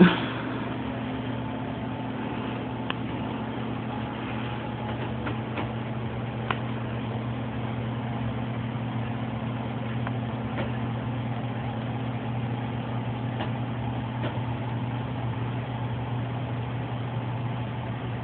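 A steady low machine hum, with a sharp click at the very start and a few faint ticks.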